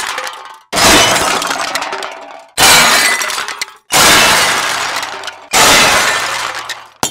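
Glass shattering sound effects: a run of separate smashes about every one and a half to two seconds. Each starts as a sudden crash and the breaking shards trail off over a second or so. A shorter sharp glass hit comes near the end.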